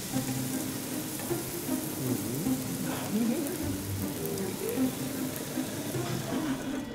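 Thinly sliced beef brisket sizzling on a tabletop grill, a steady hiss.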